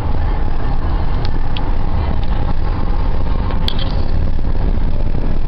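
Road noise inside a vehicle's cabin at highway speed: a steady low rumble of tyres, engine and wind. One short click a little after halfway.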